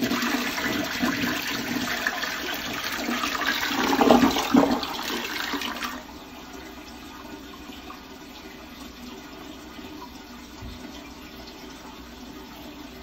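Toilet flushing: water rushes and swirls down the bowl, loudest around four seconds in. At about six seconds it drops sharply to a quieter steady run of water as the toilet refills.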